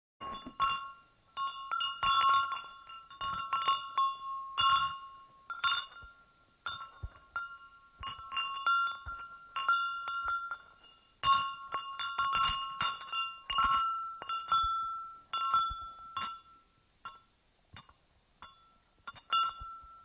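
Chimes ringing in irregular clusters of strikes, the same few high notes repeating and each ringing on briefly. The strikes thin out and grow quieter near the end.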